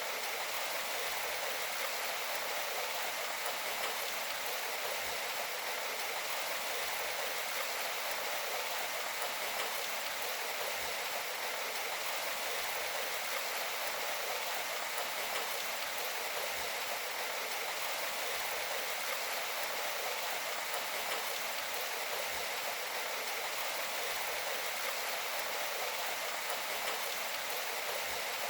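Steady rain falling, an even hiss with little low end.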